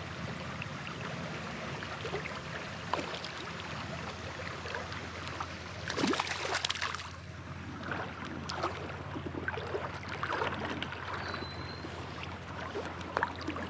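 Creek water running steadily, with brief splashing about six seconds in and a few smaller splashes and knocks.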